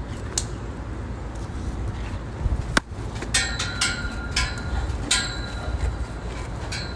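A series of sharp metallic clinks, each ringing briefly, over a steady low rumble; the clinks come closer together in the second half.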